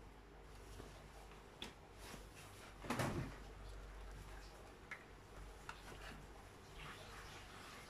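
Cloth of a coat rustling and shifting as it is handled, with a few light clicks and one louder rustle about three seconds in, over a low steady hum.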